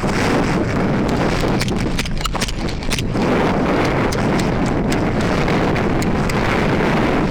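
A person running on foot, with quick footfalls and gear rattling, and wind rushing over the microphone.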